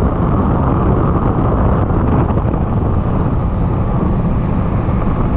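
Fishing boat running at speed: a loud, steady rush of wind on the microphone over the motor's drone.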